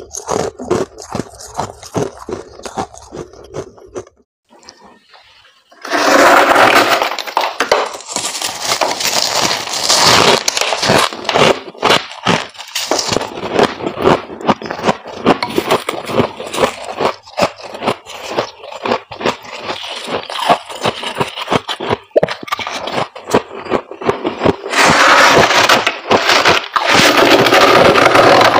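Crunching of powdery ice being bitten, then after a short break about four seconds in, frost being scraped off the walls of a chest freezer with a gloved hand and crunched between the teeth. There are long scraping passes about six seconds in and again near the end, with dense crackly crunching between them.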